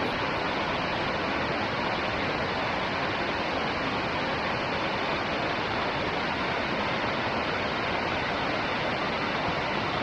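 Wide waterfall of many thin strands falling down a rock wall into a pool: a steady rush of falling water.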